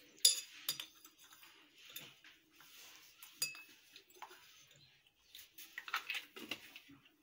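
A metal utensil clinking and knocking against a stainless steel pressure-cooker pot: one sharp clink right at the start, then scattered lighter clinks and knocks with quiet between.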